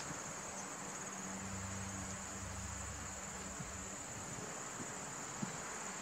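Faint, steady, high-pitched insect chirring over a low outdoor hiss, with a faint low hum through roughly the first four seconds.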